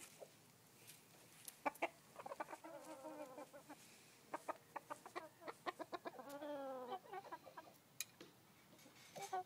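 Chickens in a pen clucking and calling, with two drawn-out calls about a second long, the second falling in pitch at its end, and sharp clicks and taps in between.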